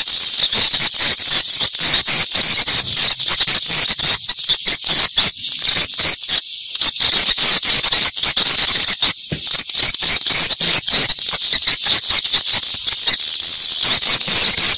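Swiftlet calls: a loud, continuous high twittering made of rapid chirps and clicks packed closely together.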